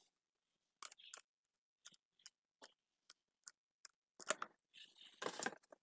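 Screwdriver turning the screw out of the back of a small transistor radio's case: a string of faint, irregular clicks, with louder clusters of clicks about four seconds in and near the end.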